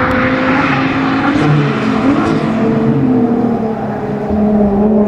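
Nissan R35 GT-R's twin-turbo V6 with an aftermarket HKS exhaust, driving on track under load, its engine note rising and falling as it changes speed.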